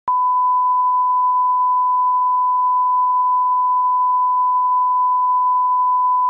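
Emergency alert attention tone: a single steady, pure electronic beep that switches on abruptly and holds unchanged at one pitch.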